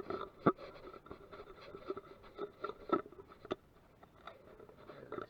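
A string of irregular light clicks and knocks, several a second, with faint scraping between them and the loudest knocks near the start and about three seconds in.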